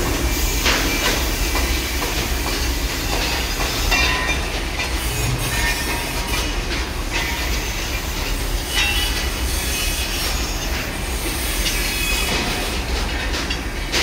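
Industrial noise from a running tower melting furnace in a foundry: a steady low rumble with scattered metallic clanks and brief high squeaks.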